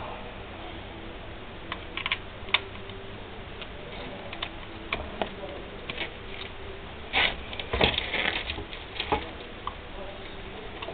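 Irregular light metallic clicks and taps from hands working on a moped's pedal crank and drive-belt parts, with a quick flurry of them about seven seconds in.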